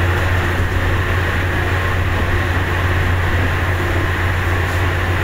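River car ferry's engine droning steadily, a deep even hum with a rushing noise over it.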